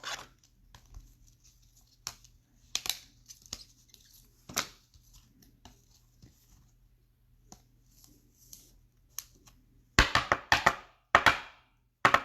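Baseball card packs being torn open and cards handled: soft scattered rustles and clicks, then a quick run of louder tearing and crinkling about ten seconds in.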